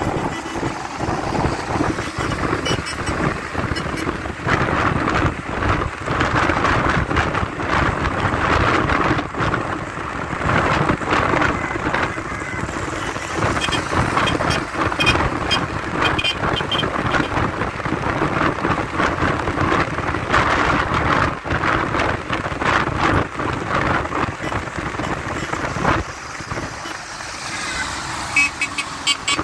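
Wind and road noise heard from inside a vehicle moving at highway speed with its side window open. Air rushes and buffets the microphone over engine and tyre noise, easing a little near the end.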